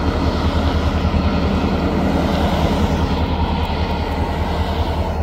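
Strong wind buffeting the microphone with a heavy, fluttering rumble, over the steady drone of a diesel locomotive idling at a crossing. Cars pass on the road early on, and the hiss of traffic fades out near the end.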